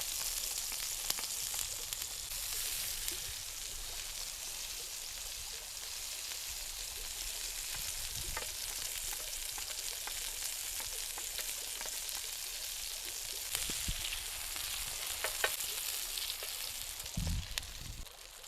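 Food frying with a steady sizzle and scattered small pops, and a short low thump near the end.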